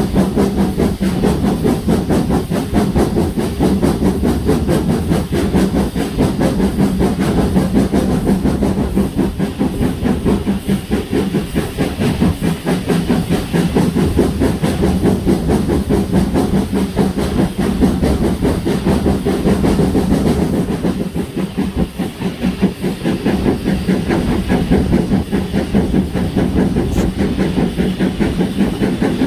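Steam locomotive 7822 Foxcote Manor, a GWR Manor class 4-6-0, running under steam: its exhaust beats in a quick, steady rhythm over a continuous hiss of steam.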